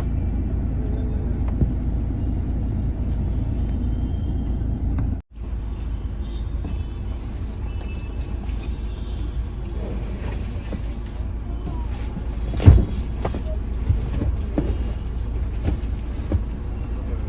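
Steady low rumble of motor vehicles or road traffic. It breaks off abruptly for an instant about five seconds in, and there is a single sharp knock about thirteen seconds in.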